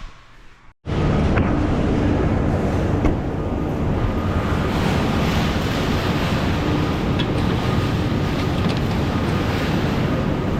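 Steady wind and road rush of a vehicle driving, with wind buffeting the microphone, starting abruptly about a second in.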